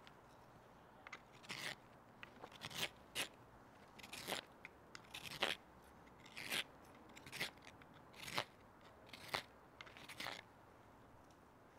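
Sloyd knife slicing shavings from the inside of a green beech branch section, a dozen or so short crisp cuts about one a second. The fresh green wood cuts easily.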